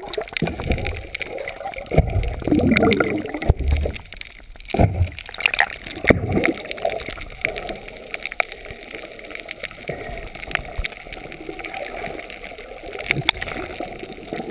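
Water gurgling and sloshing around a camera as it goes underwater: several loud bubbly surges in the first six seconds or so, then a steady wash of water noise with many faint crackling ticks.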